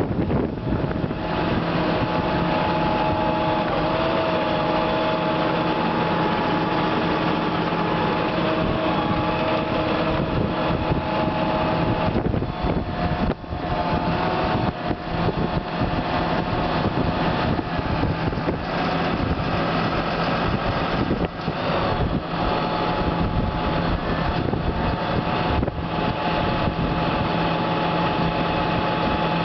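John Deere 7930 tractor's diesel engine idling steadily, with a steady whine above the engine note.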